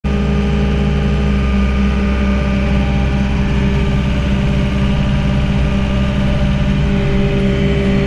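An engine running steadily at an even speed, with a constant low hum and no revving.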